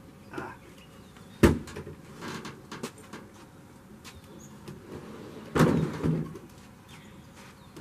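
Knocks and thumps from a pickup's tailgate and the wooden box in its bed being handled: one sharp knock about a second and a half in, and a longer rattling knock near six seconds, with small handling noises between.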